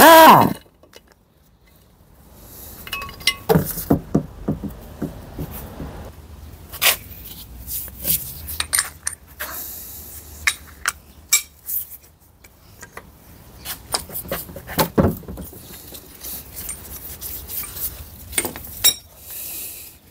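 Metal gearbox parts and tools clinking, knocking and rubbing as they are handled during the teardown of a Toyota 5-speed robotised gearbox, with scattered irregular clicks throughout. There is a short pitched sound at the very start.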